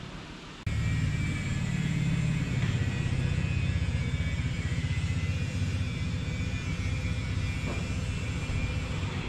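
Steady low mechanical rumble with a fast, even pulse, cutting in abruptly about a second in.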